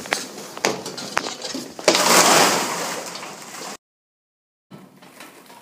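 Plastic ball-pit balls rustling and clattering, with a sudden loud rush about two seconds in that dies away, then the sound cuts out completely for about a second.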